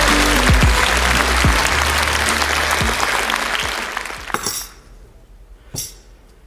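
Studio audience applauding over intro music with a repeating bass line; the applause and music fade out about four and a half seconds in. A couple of light knocks follow, as objects are set down on a table.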